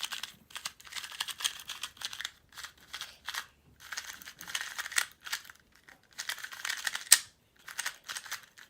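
Magnetic 2x2 speedcube (Wuxia Magnetic) being turned in quick bursts, a rattle of dry plastic clicks and scratches from layers that are unlubricated and feel super dry. There is a sharper snap about seven seconds in.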